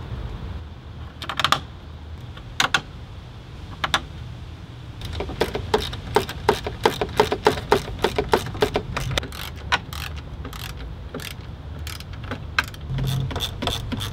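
Hand work refitting the fan shroud at the front of an E39 BMW: a few separate clicks, then a fast run of clicks and clacks lasting several seconds, then a few scattered clicks.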